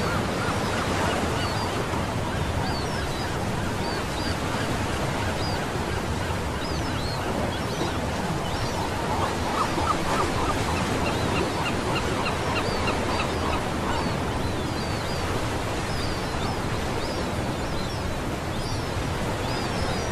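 Sea waves breaking and washing up a sandy beach, a steady rush of surf. Birds call faintly over it, with a quick run of short chirps about ten to fourteen seconds in.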